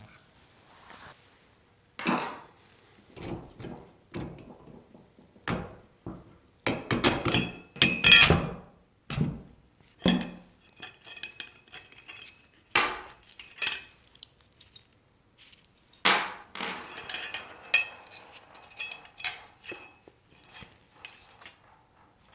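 Metal parts of a vintage electric table fan knocking and clinking as it is handled and taken apart, an irregular run of knocks with short metallic rings, busiest about a third of the way in.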